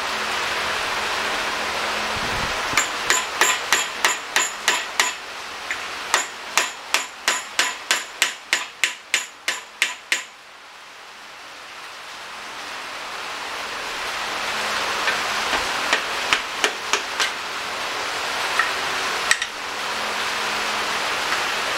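Hammer tapping out the old oil pump from a 1969 VW Beetle's magnesium engine case: two runs of light, ringing metal taps, about three to four a second, over a steady hiss, then a few scattered taps later on.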